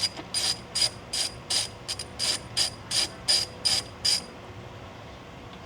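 Socket ratchet clicking through about a dozen quick back-strokes, roughly three a second, stopping about four seconds in: a 12 mm nut on a grounding lug being backed off.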